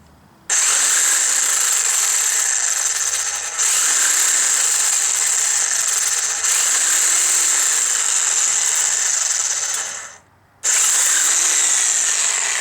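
Reciprocating saw (Sawzall) running in long runs as it cuts through a metal EGR tube. It stops for about half a second around ten seconds in, starts again, and tails off near the end.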